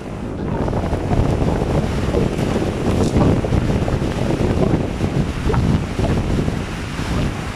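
Tropical storm wind buffeting the microphone in uneven gusts, over storm waves surging and breaking along the shore.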